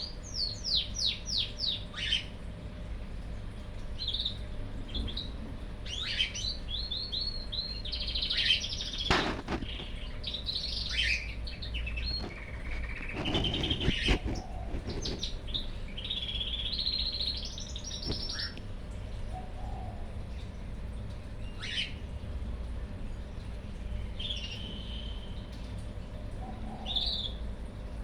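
Cockatiel singing: a quick run of falling whistled notes at the start, then a varied string of whistles and chirps, busiest in the middle and sparser toward the end.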